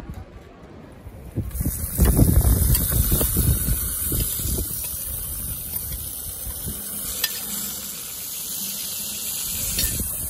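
Chopped zucchini and red peppers sizzling in oil in a hot titanium pan, a steady hissing sizzle that starts about a second and a half in. Low buffeting rumble of wind on the microphone, strongest just after the sizzle begins.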